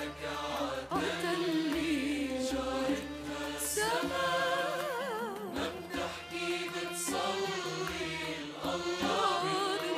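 A woman singing a slow Arabic hymn in long held notes with a wavering vibrato, over a low sustained accompaniment.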